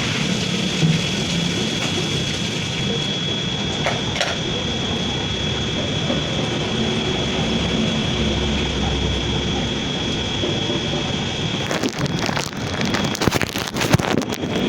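Steady machinery noise with a constant high whine, as from a running 5000 gpd reverse osmosis plant. A run of sharp clatters and knocks comes near the end.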